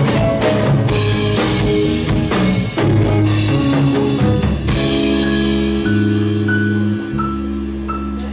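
Live rock band playing an instrumental passage with no vocals: drum kit, bass and guitar together. About halfway through, the drumming thins out and sustained chords ring on.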